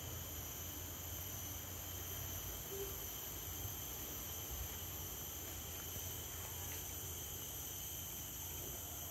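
Steady chorus of forest insects: a continuous shrill drone at several constant high pitches, over a low rumble.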